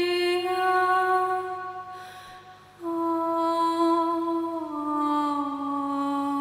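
Slow, gentle music of a wordless voice humming long held notes: the first note fades out about two seconds in, then a new note enters and steps down in pitch twice.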